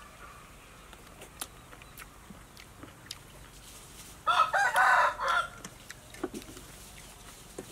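A rooster crows once, about four seconds in, in a single call lasting a little over a second.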